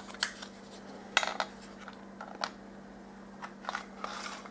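Scattered light clicks and taps, about half a dozen, as a steel handle rod is slid through a 3D-printed plastic coaxial rest and the parts are handled.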